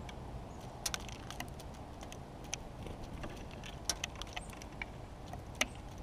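White-breasted nuthatch pecking and picking through sunflower seeds in a wooden log trough feeder: irregular sharp taps and clicks of beak and seed on wood, over a steady low rumble.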